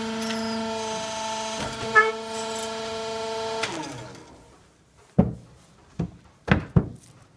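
Electric motor-driven pump running with a steady hum, then winding down and stopping after about three and a half seconds. A few seconds later come four sharp knocks.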